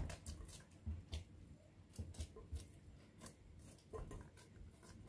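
Hands kneading yeast dough in an oiled glass bowl: faint, irregular soft squishes and light taps against the glass.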